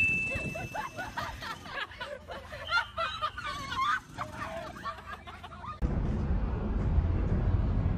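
Young girls giggling and laughing, over the tail of a fading chime at the start. About six seconds in this gives way abruptly to a steady low rumble of wind on the microphone.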